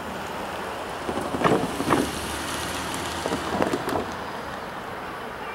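Outdoor ambience of steady wind noise on the microphone, with a few louder gusty rustles about one and a half and three and a half seconds in.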